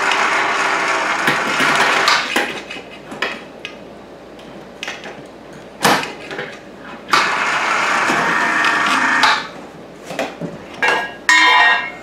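Small electric hoist's motor running in spells: once at the start, again for about two seconds midway, and briefly near the end, with sharp metal clinks and clanks of the hook and chain in between as the hook is fitted to a box's handle.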